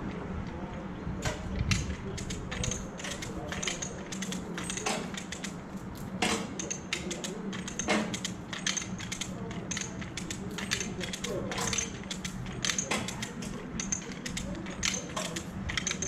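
Lever chain hoist (come-along) being ratcheted, giving a run of irregular sharp metallic clicks and chain clinks, as it tensions an overhead trolley wire. A steady low hum runs underneath.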